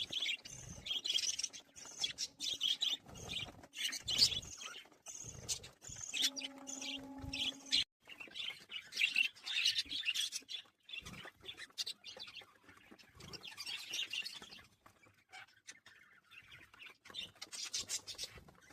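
A flock of budgerigars chattering and chirping in bursts, with a brief steady low hum about six seconds in.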